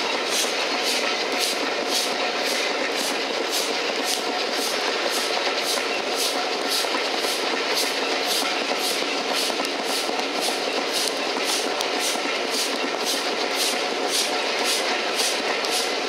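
Steam-hauled train on the move, heard from an open carriage window behind LMS Black Five 4-6-0 45428: a steady rush of wheels on rail and passing air, with a quick regular beat of about three a second.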